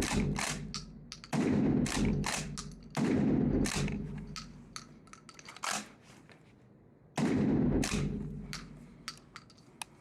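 Gunshots fired at a slow, deliberate pace: loud shots about a second and a half apart in the first few seconds and another about seven seconds in, each trailing off in a long echo, with lighter clicks and knocks between them.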